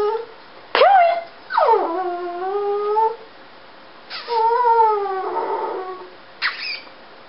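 A dog vocalising in a series of whining, howl-like calls: each starts high and slides down into a held, wavering tone. A short call about a second in, two long drawn-out calls, then a brief high yip near the end.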